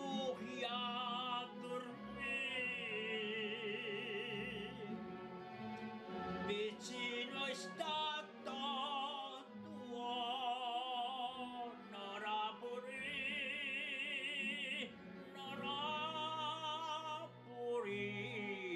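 Operatic solo singing with orchestral accompaniment: long held notes with wide vibrato, in phrases broken by short pauses.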